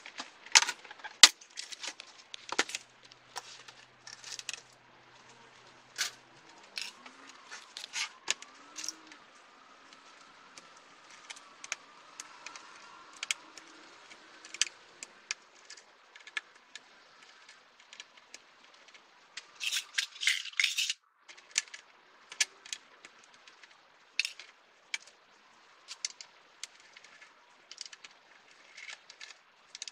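Hand disassembly of an edge-lit LED TV panel: irregular sharp clicks and taps of small screws, hand tools and the TV's sheet-metal chassis being handled, with a denser rattling burst about two-thirds of the way through.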